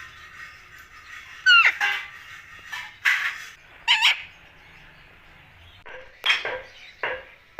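A parrot calling: a loud call sliding sharply down in pitch about one and a half seconds in, two more loud calls around three and four seconds, then a quick series of short repeated calls near the end.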